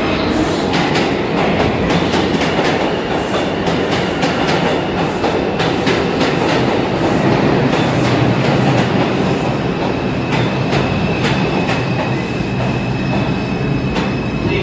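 New York City Subway train pulling into an underground station and running past close by: a steady rumble of the cars with wheels clacking over rail joints. A thin, high, steady wheel squeal joins in about ten seconds in.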